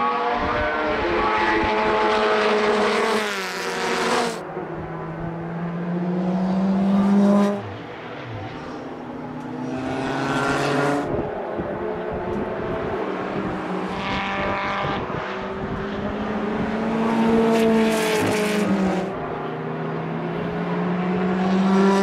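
Historic single-seater formula racing cars passing at speed, several in turn, their engines rising in pitch and dropping at each gear change. Gusty wind rumbles on the microphone.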